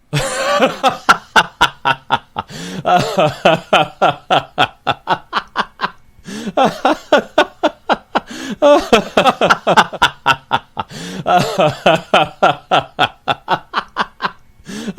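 Laughter sound effect: a voice laughing in quick 'ha-ha-ha' pulses, several a second, in runs broken by short pauses.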